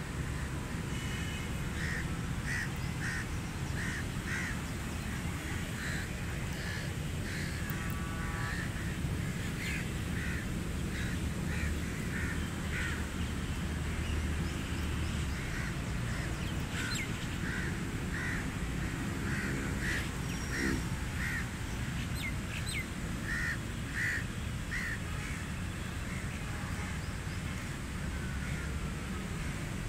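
Crows cawing again and again in short runs of calls, over a steady low rumble.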